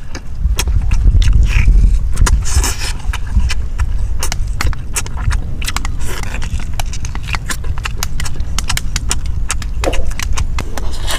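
Close-up chewing and lip-smacking as fried pork is eaten by hand: many quick, irregular mouth clicks and smacks over a steady low rumble.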